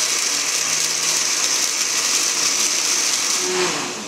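Countertop blender running at full speed, grinding soaked soybeans with water into soy milk. The motor falls in pitch and fades near the end as it winds down.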